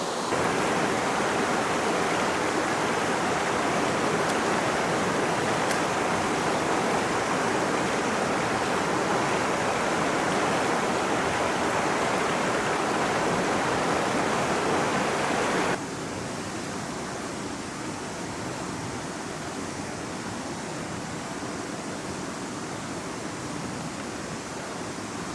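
Rushing river water, a steady noise of current over rocks from a river running high. It drops suddenly to a quieter level about two-thirds of the way through.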